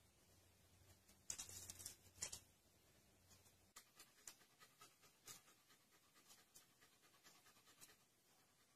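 Faint dog panting: a louder stretch of rough breaths between about one and two and a half seconds in, then short, softer pants.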